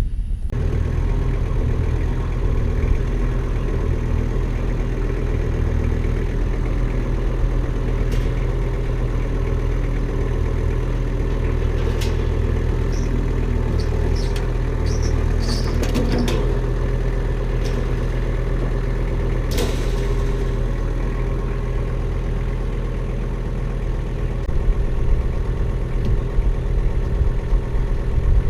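Diesel engine of a piece of farm machinery running steadily, with a few sharp clanks and rattles in the middle.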